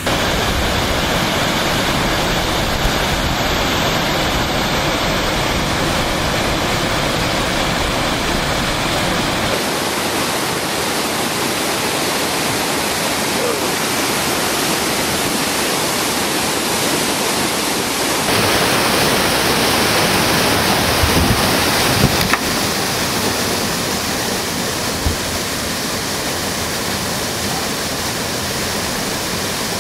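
Whitewater rushing through a steep, rocky creek drop: a steady loud rush of water that shifts in tone twice, about ten and eighteen seconds in.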